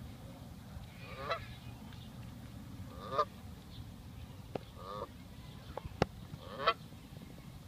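Canada geese honking: four short calls, about one every two seconds. A few sharp clicks fall between the later calls, over a steady low rumble.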